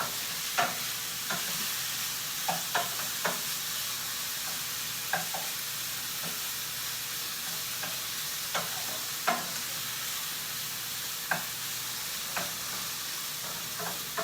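Chicken breast pieces sizzling as they sauté in a non-stick pot, with a steady frying hiss. Every second or so a utensil clicks against the pot as the chicken is stirred.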